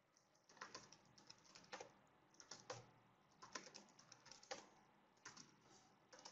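Computer keyboard being typed on: an irregular run of faint, separate keystrokes.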